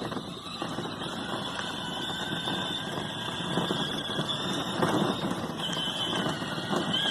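Electric drive motors and gearbox of a 12V ride-on toy Jeep whining steadily at a high pitch, the whine stepping up slightly about five and a half seconds in and again near the end, over a rough rolling noise.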